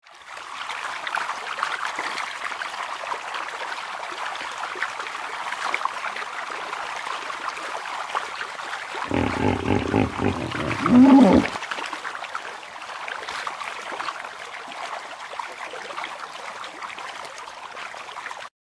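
Steady rush like running water, with one animal call about two and a half seconds long about nine seconds in, loudest near its end.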